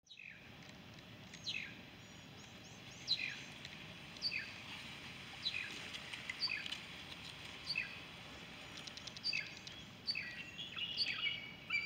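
Red-winged blackbird calling while it harasses a bald eagle: short, down-slurred whistled notes repeated about once a second, over a faint outdoor hiss.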